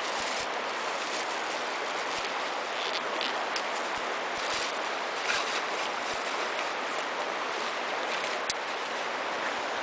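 Steady rushing of river water, with a few faint clicks and knocks.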